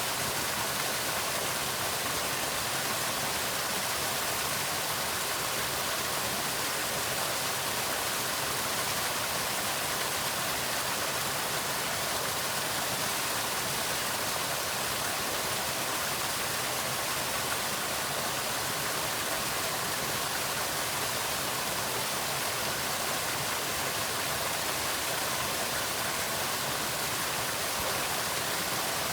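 Waterfall pouring steadily, an even rush of falling water.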